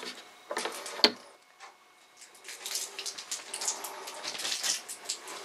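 Solar panel lead with its plug connector being set down on the panel: a few clicks and a sharp knock about a second in. From halfway through, a crackling, rustling handling noise.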